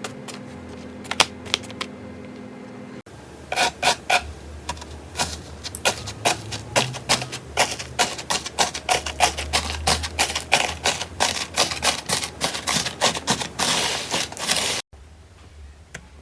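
Slime being pressed and squeezed, giving sharp crackling clicks and pops. The clicks are sparse at first, turn abruptly into a dense, uneven crackle about three seconds in, and stop suddenly near the end.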